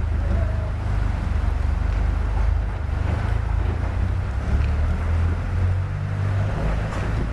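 Diesel engine of heavy earthmoving equipment running with a steady low rumble, its pitch rising briefly about six seconds in.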